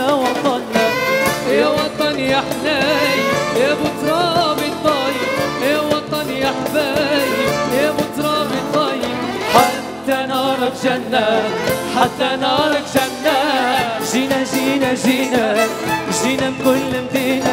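Male voices singing an Arabic pop song into microphones over instrumental accompaniment. The melody is ornamented with quick wavering turns.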